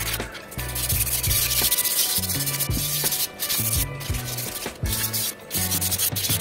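Sandpaper rubbed by hand in back-and-forth strokes over the rusty metal bed plate of an old Singer sewing machine, a gritty hiss that swells and breaks with each stroke.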